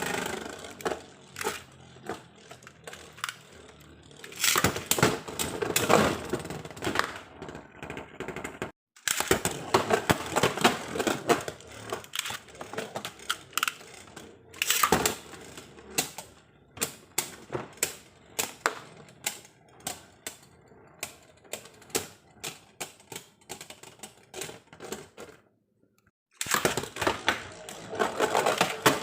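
Beyblade battle tops spinning and clashing in a plastic stadium: fast clicking and scraping with repeated hard collisions. The sound stops dead twice, about nine seconds in and again a few seconds before the end. Before the second stop the clicks thin out to spaced single ticks.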